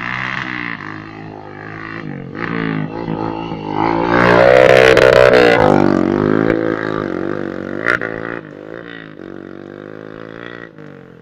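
Honda CRF150's single-cylinder engine revved hard up to its rev limiter, loudest in the middle, then dropping back to lower revs with a few smaller blips of the throttle.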